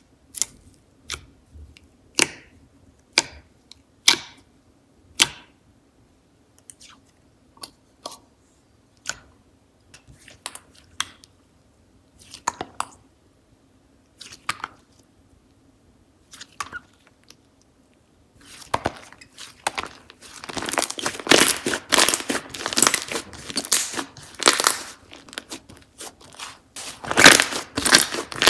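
Slime being handled by hand, sticky pops and clicks coming singly about once a second. About two-thirds of the way through they become a dense, loud run of crackling and crunching as the slime is squeezed and pressed.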